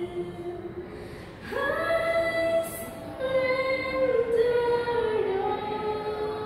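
A girl singing solo without accompaniment, holding long notes that step down in pitch, with a short break for breath about a second and a half in.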